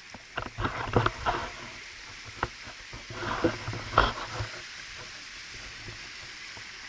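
A small stream running steadily, with irregular knocks and scuffs over it, loudest about a second in and about four seconds in.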